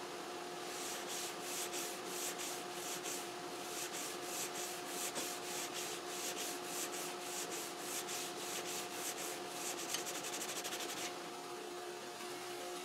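A long sanding block with 180-grit sandpaper stroked back and forth along a guitar fingerboard, about two strokes a second, quickening into short rapid strokes before stopping about eleven seconds in. This is the final truing of the fingerboard before new frets go in.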